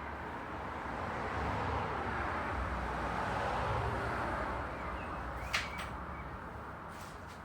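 Road traffic: a vehicle passes, its tyre and engine noise swelling to a peak about halfway and then fading. A sharp click about three quarters of the way in.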